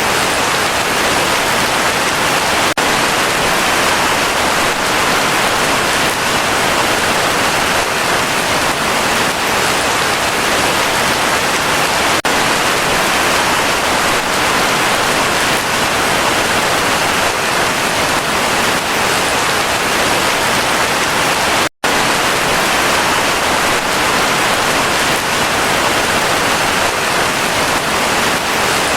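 Steady heavy rain falling on forest foliage, a dense unbroken hiss. It cuts out completely for a split second about three quarters of the way through.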